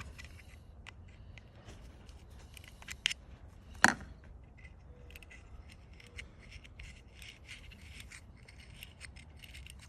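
Small metal clicks and scraping from a Zippo lighter being handled and worked on, with two sharper clicks about three and four seconds in.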